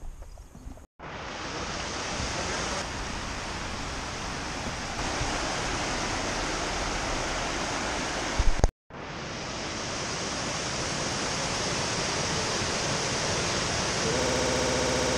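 Rushing water of a rocky stream and waterfall: a steady, even sound of cascading water. It breaks off briefly about a second in and again near nine seconds, with a short low thump just before the second break.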